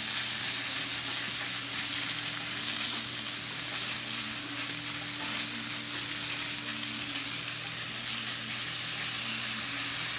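Hot dogs and cheddar bratwursts sizzling on a hot flat-top gas griddle: a steady frying hiss. The griddle is hot enough that they are cooking a little too fast.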